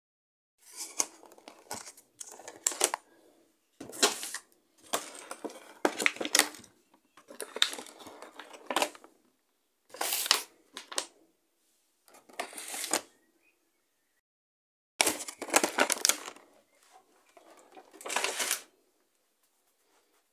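Plastic food packaging crinkling and crackling as it is handled, in about nine bursts of a second or two each, with short silences between them.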